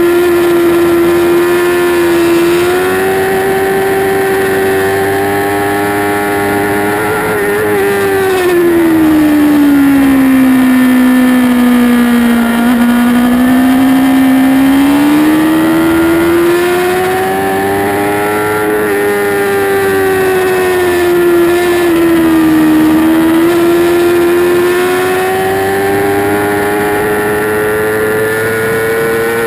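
2008 Yamaha R6's inline-four engine running hard in third gear on track. Its pitch holds at first, sinks steadily from about eight seconds in, then climbs back up. It dips briefly a little past twenty seconds and rises again near the end.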